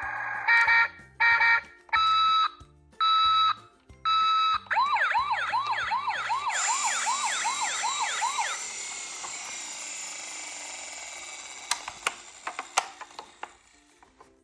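Electronic siren of a toy emergency vehicle. Five short steady beeps come first, then a fast rising-and-falling yelp for a few seconds, which fades into hiss. A few sharp clicks follow near the end.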